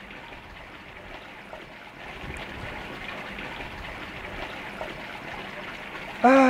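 Steady running water: hot-spring water pouring from a spout and splashing into a bath. It gets slightly louder about two seconds in.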